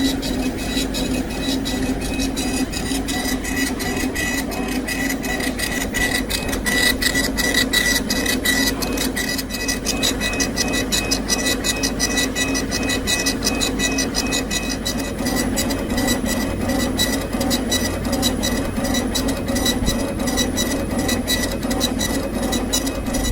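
Laser engraving and cutting machine running: a steady motor and fan hum with rapid clicking as the head moves.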